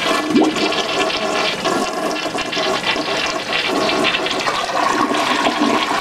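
American Standard toilet flushing: the water rushes in suddenly and keeps running loud and steady.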